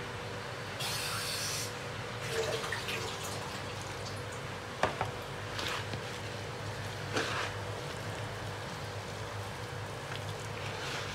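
A little water poured briefly into a bowl of gram flour and sliced onion about a second in, then bare hands squishing and kneading the thick, wet bhajiya batter with scattered soft wet clicks. A steady low hum runs underneath.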